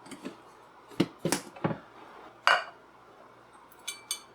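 Thin borosilicate glass pour-over funnel and base clinking as they are handled: a few light knocks in the first three seconds, then two ringing glass clinks near the end.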